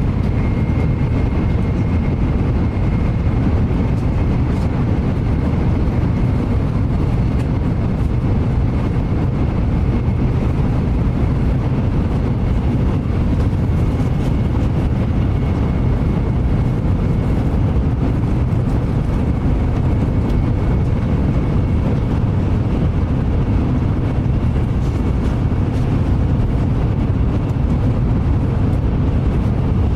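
Shinkansen bullet train heard from inside the passenger car while running at speed: a steady low rumble and rushing noise, with a faint high whine above it.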